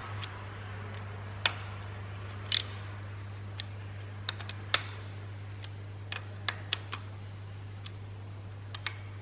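About a dozen light, sharp clicks and taps at irregular intervals, from hand tools and engine parts being handled during an engine rebuild, over a steady low hum.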